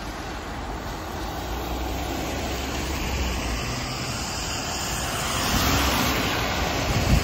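Traffic on a rain-wet street: tyres hissing on wet asphalt over a low engine rumble, the hiss swelling as a minibus passes close about five and a half seconds in.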